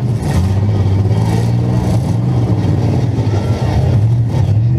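Demolition derby car's engine running loudly at fairly steady revs, heard from inside the stripped-out cabin, with a few brief noisy rushes over it.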